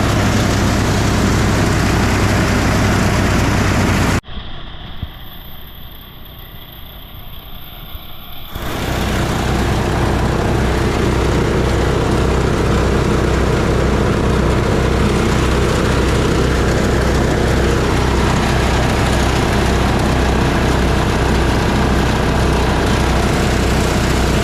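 A small engine running steadily, loud and close, with a low hum. About four seconds in it cuts away to a much quieter stretch, then comes back at the same steady level for the rest of the time.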